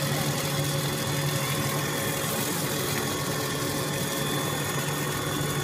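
Puffed-snack extrusion line machinery running: a steady motor hum with a few constant high whining tones over it.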